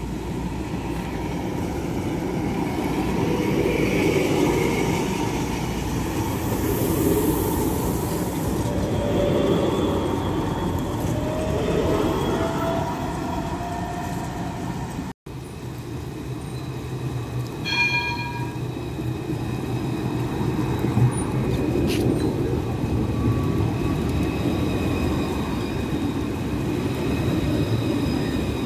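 Electric street tram running on rails: a steady rumble of wheels with a motor whine that slowly rises in pitch. About halfway through the sound breaks off abruptly, and a few seconds later comes a brief ringing tone, followed by steady high-pitched whining.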